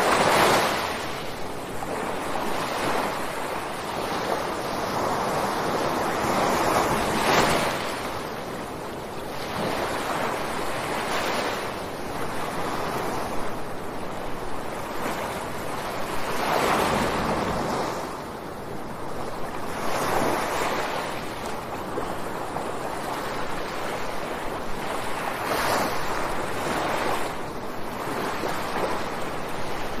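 Sea waves breaking and washing up a beach, the surf swelling and falling back every few seconds, with the biggest surges about seven seconds in and again near seventeen seconds.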